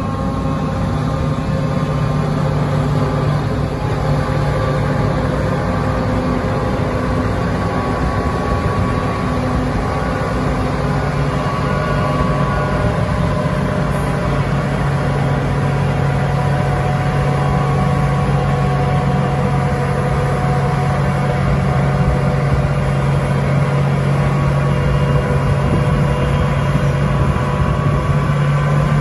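NICHIJO HTR265 rotary snowplow at work, its engine running steadily under load while the blower casts snow through the chute into a dump truck alongside. A steady engine drone over a constant rush of thrown snow.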